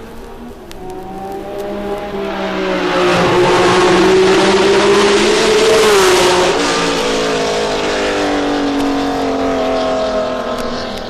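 A group of 1960s Formula One race cars passing close, several engines running together. Their engine notes rise in pitch and loudness to the loudest point about five or six seconds in, drop sharply in pitch, then fade back a little.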